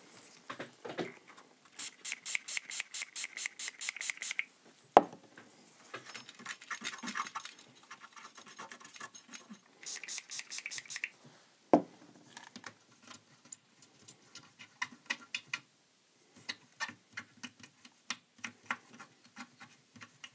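Cotton swab scrubbing a circuit board around leaky electrolytic capacitors, wiping off the leaked electrolyte residue in quick, rapid scraping strokes that come in several runs. Two sharp knocks stand out, about five and twelve seconds in.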